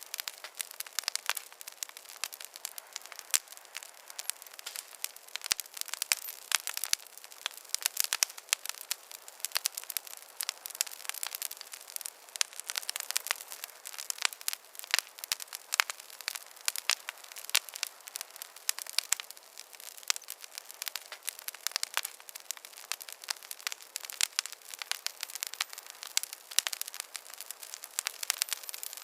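Wood fire crackling in a fireplace: a steady stream of irregular sharp pops and snaps over a soft hiss.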